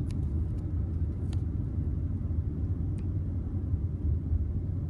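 Steady low rumble of a moving car heard from inside the cabin: road and engine noise, with a few faint ticks.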